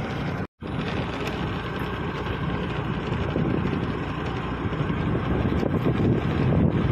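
Motorcycle engine running steadily while riding, with wind rushing over the microphone. The sound cuts out completely for a moment about half a second in.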